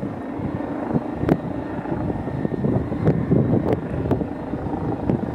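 Eurocopter EC135P2 police helicopter in flight, its twin turboshaft engines and rotors heard as a fluttering, continuous rumble.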